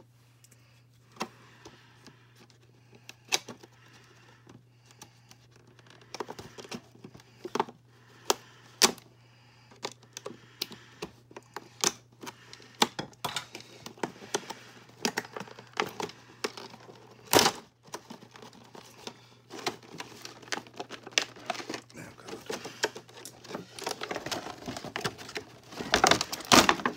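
Irregular sharp clicks and snips of large industrial nippers cutting through a cardboard-and-plastic doll box, with the packaging scraping and rustling between cuts. Near the end, clear plastic packaging crinkles as it is pulled out of the box.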